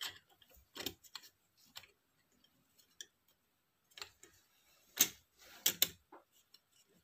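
Scattered small clicks and light knocks of metal and plastic lens parts as the metal bayonet mount is fitted onto a Samyang 35mm f/1.4 lens during reassembly, the sharpest about five seconds in followed by a quick pair.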